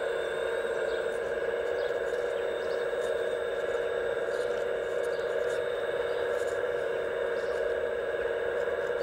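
The hydraulic pump of a radio-controlled Liebherr A918 excavator runs with a steady whine while the grapple saw's jaws open, with a few faint clicks.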